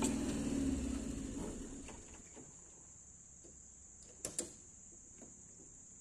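A low mechanical rumble that dies away over the first two seconds, leaving a steady high insect buzz and two sharp clicks about four seconds in.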